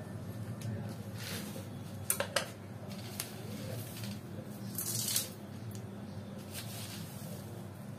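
Peanuts dry-roasting in a nonstick frying pan, giving a few sharp clicks and short hissing crackles, the two clearest pops a little after two seconds in. A steady low hum runs underneath.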